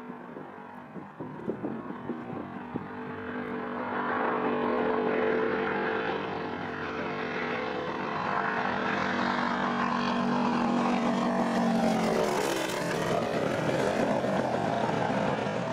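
North American AT-6 Texan's radial engine and propeller on a low flyby: the engine note grows louder as the plane approaches, then drops in pitch as it passes overhead about three-quarters of the way through.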